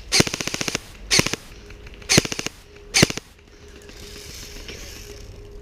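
Airsoft electric rifles firing: a rapid burst of evenly spaced shots just after the start, then shorter bursts at about one, two and three seconds in, followed by a soft hiss.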